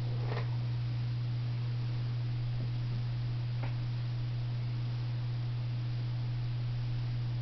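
A steady low electrical hum, with a few faint ticks.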